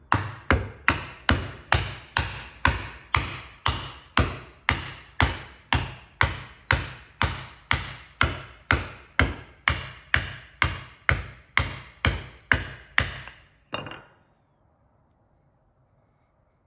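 Steady, even taps on a small wooden block held over a through dovetail joint, driving the tails home into their sockets, about two and a half blows a second. The tapping stops a few seconds before the end.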